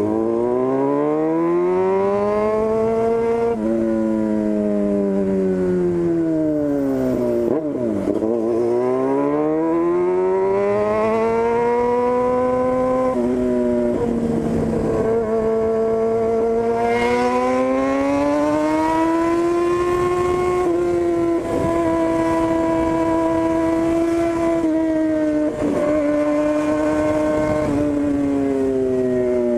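Yamaha FZ6's inline-four engine on a straight-through 4-into-1 exhaust, ridden under way: the revs climb, drop and climb again with the throttle, with gear changes about three and a half and thirteen seconds in, then hold fairly steady through the last several seconds.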